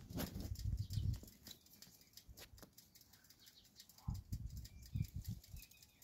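Wind buffeting the microphone in gusts: irregular low rumbling through about the first second, and again from about four seconds in, with scattered light crackles between.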